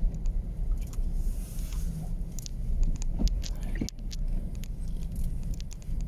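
Steady low rumble of a vehicle driving on a snow-covered road, heard from inside the cabin, with scattered light ticks and taps and a sharper click about four seconds in.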